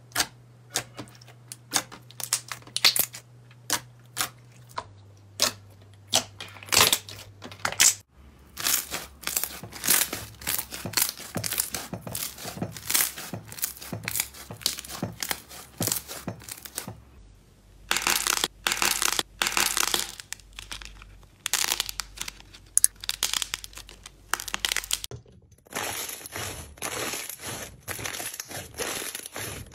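Hands pressing, poking and squeezing clear jelly slime, giving a dense run of sharp sticky clicks and pops. The texture changes abruptly three times as one slime gives way to another.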